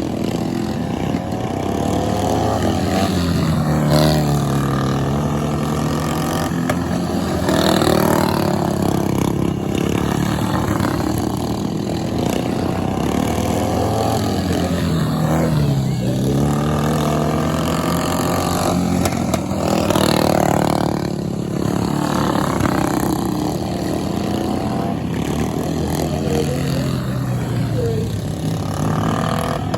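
Racing lawn mower engines running hard, their pitch repeatedly dropping and climbing again every few seconds as the throttles come off and back on.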